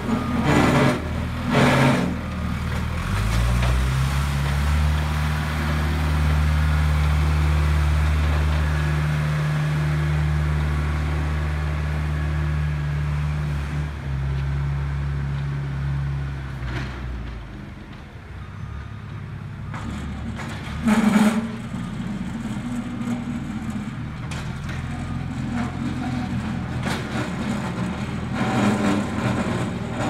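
Small tractor-loader's engine running with a steady low hum that weakens about halfway through. Several sharp knocks come through it, near the start, about two-thirds of the way in (the loudest) and near the end.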